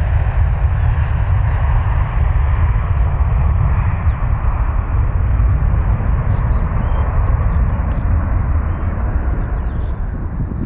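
Jet airliner engine noise close by: a loud, deep rumble that slowly recedes, its higher part fading away toward the end. Birds chirp faintly above it in the second half.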